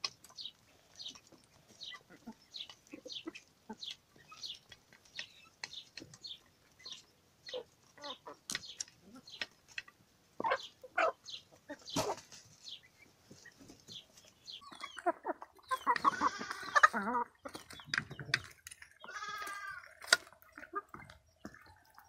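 Chickens pecking crushed garlic from a pan, a run of short sharp ticks about twice a second. From about fifteen seconds in, loud squawking calls rise from the flock, the loudest two a few seconds apart.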